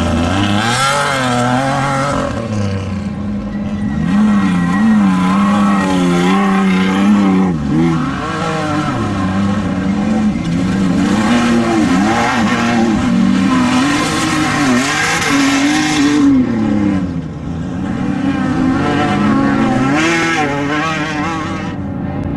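Off-road desert race vehicle engine revving up and down again and again, the pitch rising and falling with each throttle change, with brief dips about eight and seventeen seconds in.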